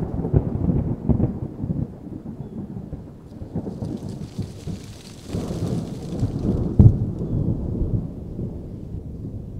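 A flat bristle brush dabbing and scrubbing thick acrylic paint onto a stretched canvas, heard as a low, rough rumble of quick strokes. It is loud in the first two seconds, quieter for a while, then loud again with a sharp knock a little before the end.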